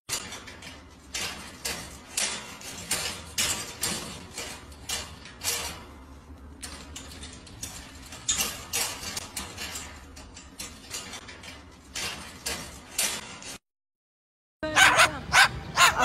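Short, sharp dog-like barks repeated irregularly, about one or two a second. After a brief silence near the end, a louder, faster run of barks begins.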